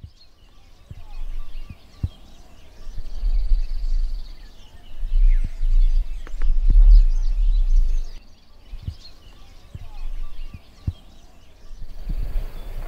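Wind gusting across the camera microphone, making a low rumble that swells and fades several times, with a few sharp clicks. A bird trills briefly a couple of times.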